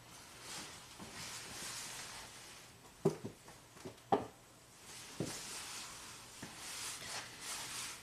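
A few faint, sharp knocks and clicks of parts and tools being handled, about three, four and five seconds in, over a soft steady hiss.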